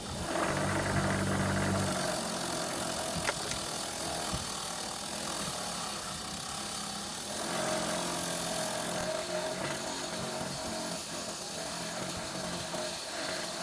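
An electric power tool running steadily, with a wavering pitch partway through as it works.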